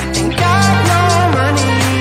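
Background pop music with a steady beat and a gliding melody line.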